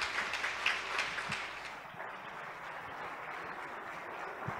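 Applause from a seated audience and panel: distinct hand claps for about the first two seconds, then a softer, even clapping sound that carries on.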